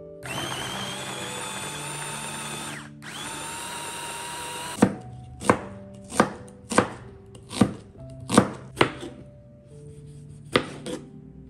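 A small electric mini food chopper runs in two pulses, the first about two and a half seconds long and the second shorter, as it grinds shallots and garlic into a spice paste. Then a kitchen knife chops an onion on a plastic cutting board, about nine uneven knocks.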